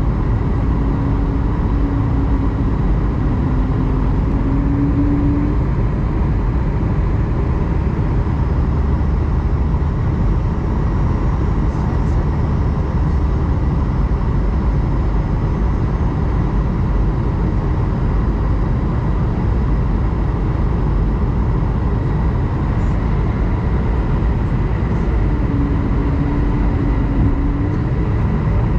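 Steady cabin roar of an Airbus A220-100 airliner on approach: airflow and the hum of its Pratt & Whitney PW1500G geared turbofan engines, with faint steady whines. A brief wavering hum rises and falls twice, once in the first few seconds and again near the end.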